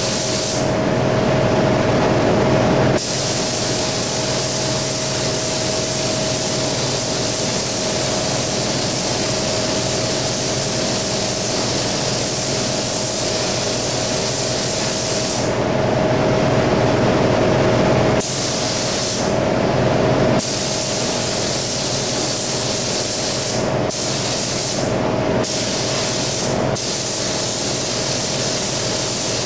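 Steady hiss of moving air with a low hum and a constant whine underneath, from the running air equipment of a paint booth. The highest part of the hiss cuts out briefly several times.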